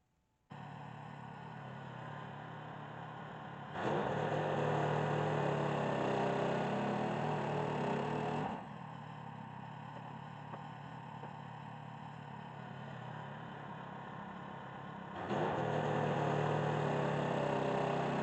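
Gas engine of a Woodland Mills band sawmill running steadily, twice stepping up to a much louder run for several seconds, about 4 seconds in and again near the end.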